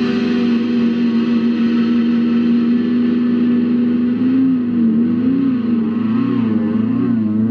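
Distorted electric guitar holding one long note, which starts to waver up and down in pitch about halfway through.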